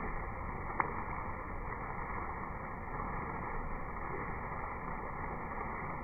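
Steady rush of water pouring from an overhead water-park spout and splashing onto two people and the wet floor, with a single sharp click about a second in.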